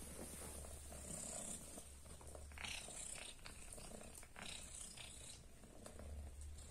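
Cat purring, a low steady rumble, with a few faint brief rustles as the kittens shift about.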